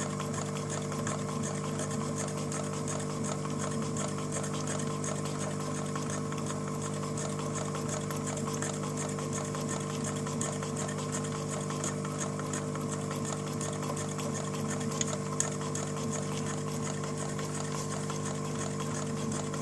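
A 1960s Elna SU electronic sewing machine running steadily while it sews a decorative cam stitch. Its motor gives a steady hum, with the fast, even ticking of the needle stroke laid over it.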